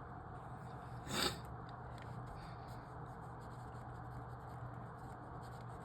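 Pen writing on paper, with one short scratching stroke about a second in, over a low steady hum.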